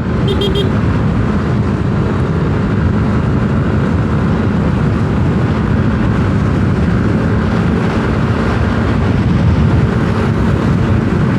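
Steady wind rushing over the microphone while riding a Yamaha Aerox 155 scooter, its 155 cc single-cylinder engine running underneath. A short beep, like a horn, sounds right at the start.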